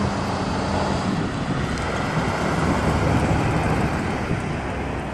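1961 Chrysler New Yorker's 413 cubic-inch V8 running as the car drives past, getting louder toward the middle and fading near the end.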